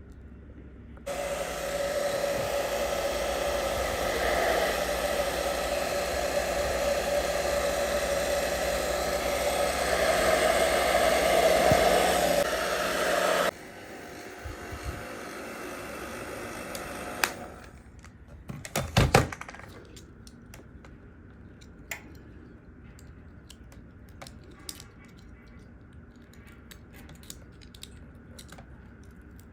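A handheld hot-air blower runs steadily for about twelve seconds to melt the old screen adhesive on a GoPro's metal screen frame, then cuts off suddenly. After it, a fainter hum lasts a few seconds, then come a few sharp knocks and scattered light clicks.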